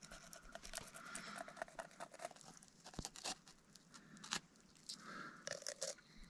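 Knife filleting a rainbow trout, cutting along its backbone: a run of faint, sharp clicks and scrapes as the blade works through the flesh and bones.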